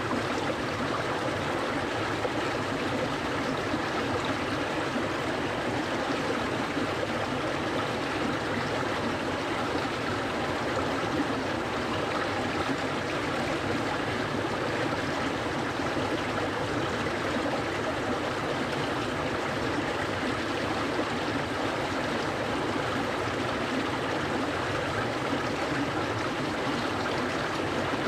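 Clear mountain stream flowing steadily over rocks, a continuous rushing and gurgling of water.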